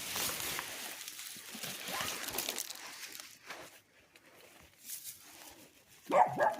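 Rustling and crackling of sweet potato vines and leaves being pulled up out of a container of soil, dying down after about three seconds. A brief louder sound comes near the end.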